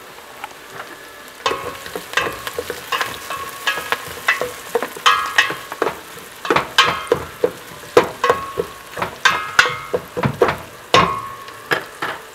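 Onion, garlic and small dried shrimp (hibe) sautéing in oil in a stainless steel pot with a faint sizzle, while a spoon stirs them and knocks and scrapes against the pot. From about a second and a half in come irregular knocks, one or two a second, several ringing briefly like metal.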